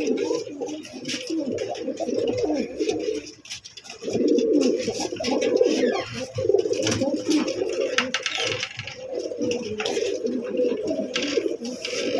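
Tournament pigeons cooing almost without pause inside a small wooden nest box, with a short break about three and a half seconds in. Scattered light clicks and scratches run through it.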